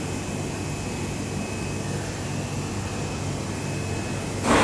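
Steady running noise of machine tools in a CNC machine shop, a constant hum with a whine, and a short loud burst of noise near the end.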